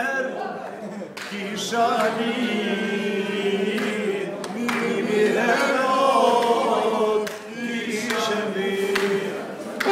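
A group of men singing a song together.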